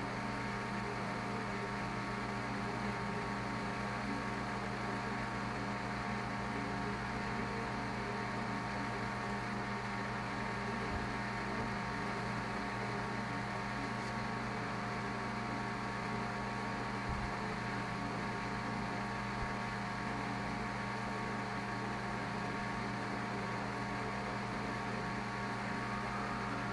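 Steady electrical mains hum with a layer of hiss, from the CRT monitor and CCTV equipment being filmed, unchanging throughout.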